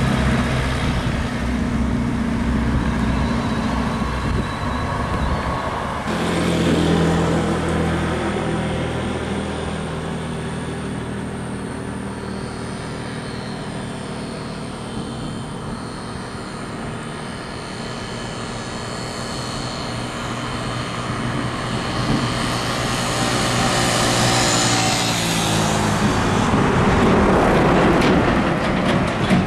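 Heavy buses and trucks driving past on a highway, a steady engine drone with tyre and road noise. The sound changes abruptly about six seconds in. It grows louder toward the end as vehicles come close.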